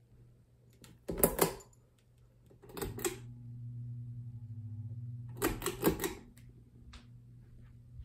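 Ceiling fan's pull-chain switch clicking in several quick pulls, as the fan motor starts with a steady low hum about three seconds in. The hum shifts slightly after another run of clicks near six seconds, as the speed is changed.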